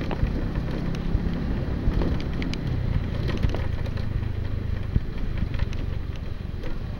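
Motorcycle engine running steadily at low speed, with scattered short knocks from riding over the uneven paved lane.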